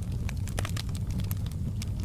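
Wood fire in a fireplace crackling: frequent, irregular sharp pops and snaps over a steady low rumble of the flames.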